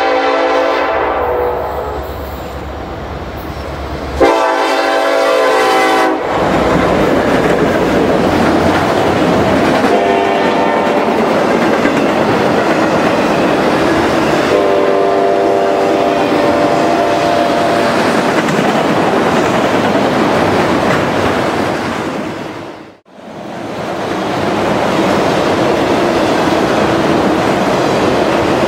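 Freight train's locomotive horn sounding two long blasts on the approach, the second louder, then softer horn notes as the train arrives. After that comes the steady rumble and clickety-clack of a long string of autorack cars rolling past, with a sudden momentary dropout near the end.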